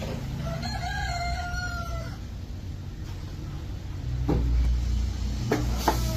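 A rooster crows once, a single call lasting about a second and a half. Later a low rumble sets in, with several sharp metallic-sounding knocks near the end.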